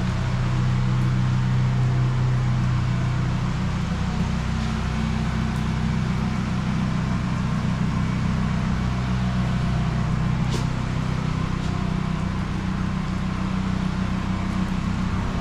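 An engine running steadily at an even speed, a constant low hum, with a faint tick about ten and a half seconds in.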